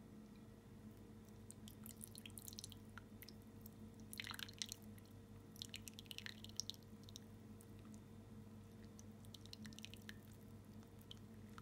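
Faint wet squishing and dripping in a few short spells: soft cooked mandarin halves squeezed by hand, their juice dripping into a glass.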